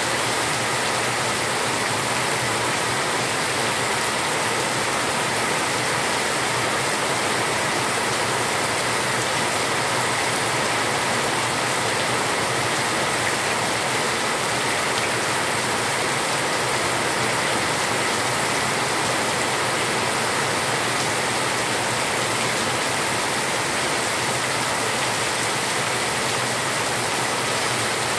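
Heavy rain pouring steadily onto a concrete yard, a constant even hiss with no letup.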